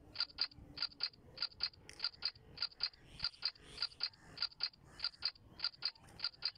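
Crisp, clicky drum strokes in a steady repeating rhythm, often in quick pairs, about three strokes a second.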